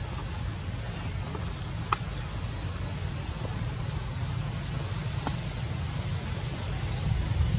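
Outdoor ambience: a steady low rumble of wind on the microphone, with a few faint high chirps and one sharp click about two seconds in.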